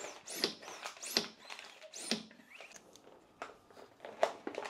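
Hand vacuum pump drawing the air out of a vacuum storage bag: quick plunger strokes, each a short hiss that rises and falls in pitch, about two a second, thinning out after about two seconds. Plastic bag rustling and light clicks follow.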